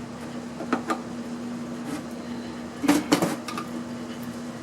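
Light clicks and knocks of plastic and metal parts being handled as an electronic speaker monitor is disassembled: one click about a second in, then a quick cluster of knocks about three seconds in, over a steady low hum.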